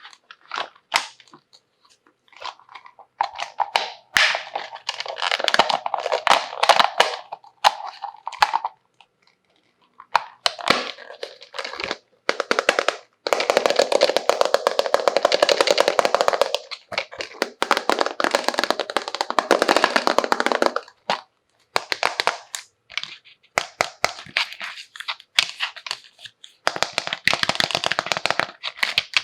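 Plastic packaging crinkling and crackling as it is handled and unwrapped. The crackling comes in bursts of a few seconds with short pauses between them.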